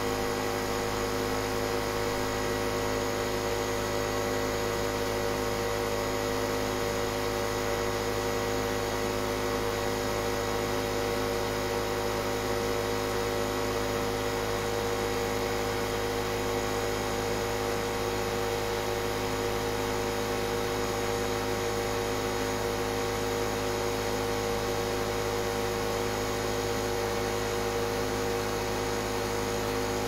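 Steady machine hum made of several fixed tones, unchanging in level or pitch.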